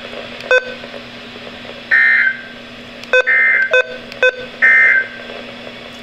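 Weather radio receiver playing three short bursts of SAME digital data, a buzzy warble about half a second each and roughly a second apart, the end-of-message code after a severe thunderstorm warning. Four brief sharp beeps fall among them, with a low steady hum underneath.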